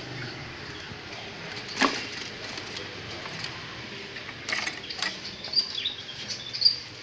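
Chinese hwamei moving about: a few sharp knocks and wing flutters, then several short high chirps over the last two seconds.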